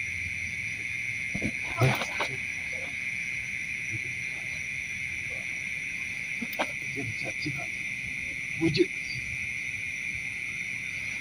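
Steady night chorus of crickets trilling at one constant high pitch, with a few brief low sounds about two seconds in and again near the end.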